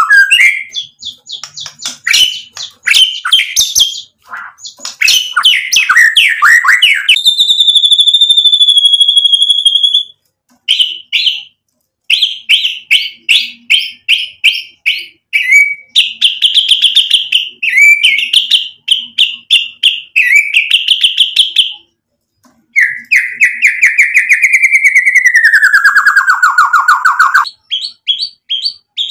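White-rumped shama singing a loud, varied song. It mixes quick chattering phrases, a long steady high whistle, and runs of rapid repeated notes. Near the end comes a long trill that slides down in pitch.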